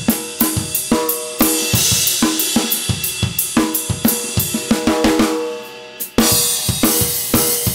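Acoustic rock drum kit played in a driving groove: kick drum, snare, hi-hat and cymbals. About five seconds in the playing thins and fades for a moment, then a crash and the full kit come back in sharply about six seconds in.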